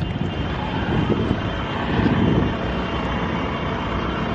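Car driving, with steady road and engine noise and a low rumble heard from inside the cabin.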